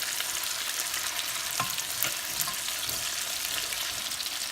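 Seasoned chicken pieces sizzling as they pan-sear in oil and butter, a steady hiss, with a couple of light knocks about a second and a half and two seconds in.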